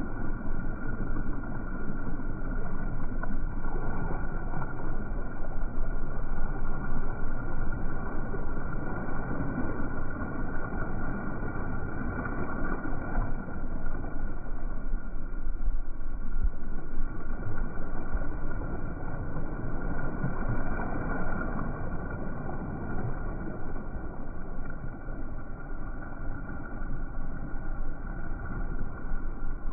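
Steady rushing of wind and sea water as a J/105 sailing yacht moves through the waves, with low wind buffeting on the microphone. The level swells and eases gently throughout, with no distinct events.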